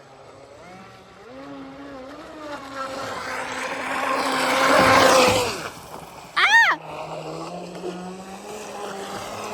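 Radio-controlled boat's motor whining, its pitch rising as it speeds up and comes close with a hiss of water, loudest about five seconds in. Soon after, a short sharp whine rises and falls, then the motor runs on at a lower, steadier pitch.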